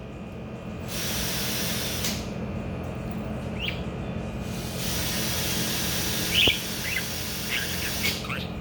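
Pet budgerigar (parakeet) giving a few short, high chirps, most of them in the second half, over two long stretches of steady hiss and a low hum.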